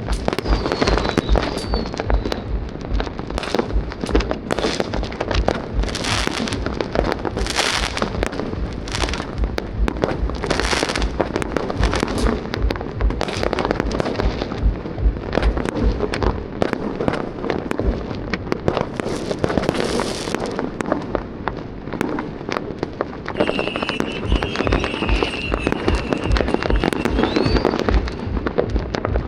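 A dense, continuous barrage of fireworks: many overlapping bangs and crackles with no pause, and a high whistle running for a few seconds near the end.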